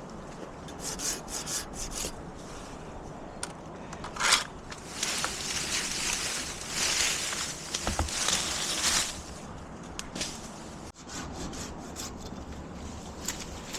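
Wood scraping and rubbing in bursts: a run of quick strokes about a second in, a short burst near four seconds, and a longer stretch of scraping in the middle.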